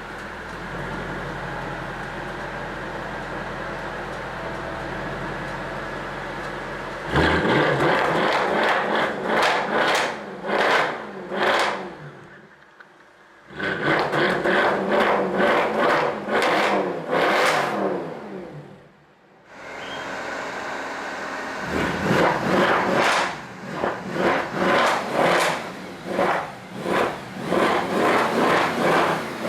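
Mercedes-Benz C63 AMG's 6.2-litre V8, warmed up, idling steadily and then blipped through quick, sharp revs in repeated runs, settling back to idle between them. The sound falls briefly quiet twice.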